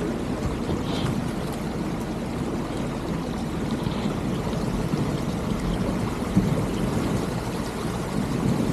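An off-road vehicle running steadily through snow: a constant dense noise, mostly low, with no clear changes.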